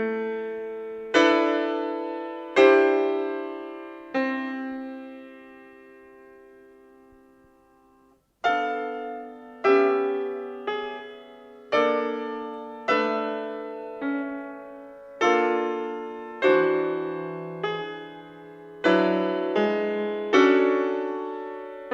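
Background piano music: slow chords, each struck and left to ring away. The playing dies out to near silence about eight seconds in, then resumes with a new phrase of chords.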